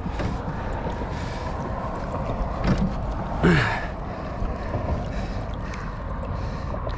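Wind rumbling on the microphone and water lapping against a small boat, with a short sound that falls in pitch about halfway through.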